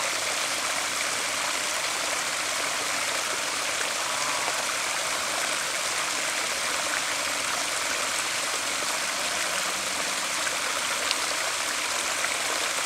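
Water rushing steadily through a pond spillway.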